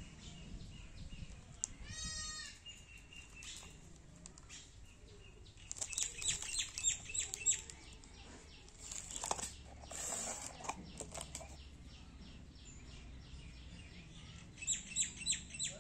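Clear plastic wrapper crinkling and rustling as it is handled, in bursts of rapid crackles about six seconds in, again around ten seconds, and near the end. A short chirp comes about two seconds in.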